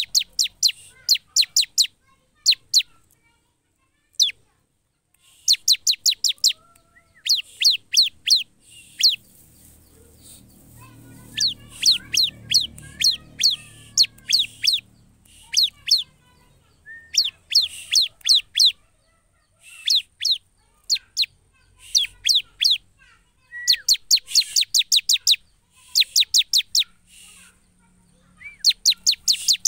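Caged prinia (ciblek) calling in rapid runs of sharp, downward-sweeping chip notes, about six a second and three to eight notes to a run, with short pauses between runs.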